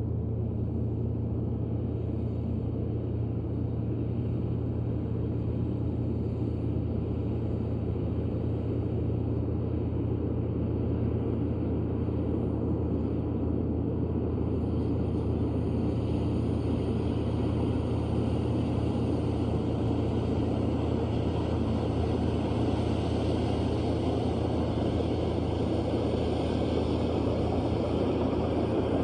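Komatsu D155A bulldozer's diesel engine running steadily with a deep rumble, growing a little louder and harsher from about halfway through.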